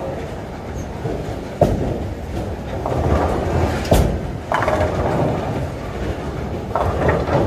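Bowling alley din: bowling balls rolling down the lanes in a steady rumble, with sharp crashes, as of pins being struck, about one and a half seconds in and again at about four seconds.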